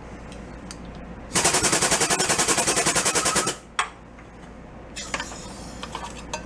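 Air-over-hydraulic pump of a shop press running to drive the ram of a sheet-metal brake, a loud, rapid chatter of about ten beats a second for about two seconds while a lip is bent into a sheet-steel part. It stops with a single sharp click, and light metal clinks follow near the end.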